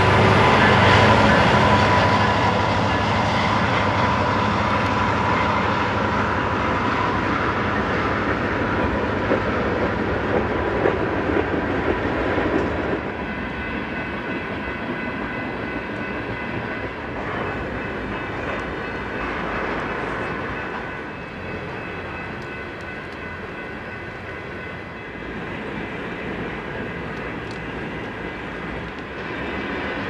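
Freight train cars (boxcars and tank cars) rolling past, their steel wheels making a steady rolling noise on the rails. The level drops about 13 seconds in.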